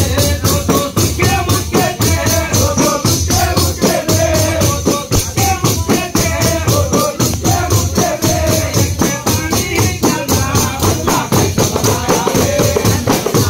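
Large jingled frame drums (dafs) beaten together in a fast, steady rhythm, under a man singing a Sufi devotional chant into a microphone.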